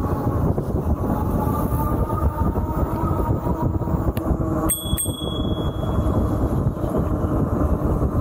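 Steady wind and road rumble of an e-bike riding on a paved path, with a bicycle bell rung twice in quick succession about halfway through, its ring fading over about a second: a warning to a pedestrian on the path ahead.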